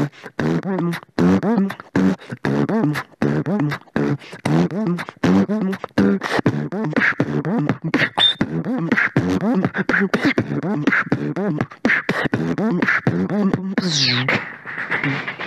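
Solo beatboxing: a fast, even beat of sharp mouth-made kicks and snares over a low, humming bass line. A held higher tone joins about two-thirds of the way in, and a sliding high tone comes near the end.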